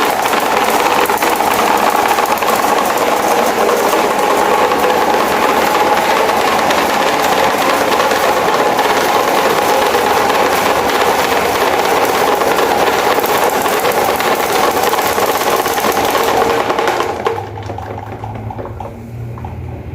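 CCE electric fan running with a loud, steady mechanical rattle and whine, malfunctioning and vibrating so hard that it moves across the floor. About seventeen seconds in the noise drops sharply to a quieter low hum.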